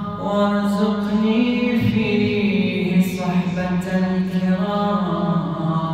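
A man chanting an Arabic supplication (du'a) unaccompanied, in a slow melodic style with long held notes that glide between pitches.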